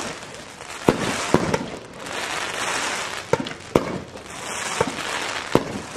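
Aerial firework shells bursting: about seven sharp bangs spread across the few seconds, over waves of hissing, crackling glitter.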